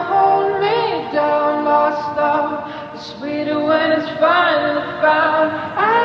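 Background music: layered singing voices holding and sliding between notes in harmony, without clear words.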